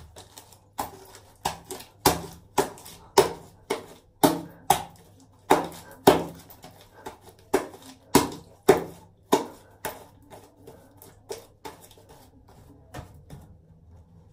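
Repeated sharp knocks on a hard surface, about two a second and unevenly spaced, growing fainter and sparser after about ten seconds.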